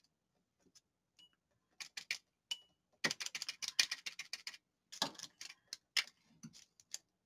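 Light, quick clicking and tapping of a brush stirred against the inside of a glass jar of coffee, with a few single clicks from the jar being handled before and after.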